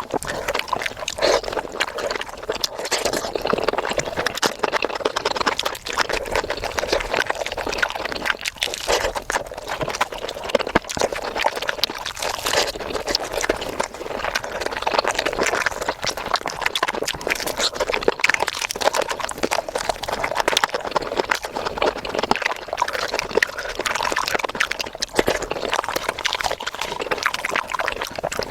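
Close-up eating sounds of chicken curry: continuous chewing, smacking and slurping mouth noises, sped up to double speed so the clicks and smacks come thick and fast.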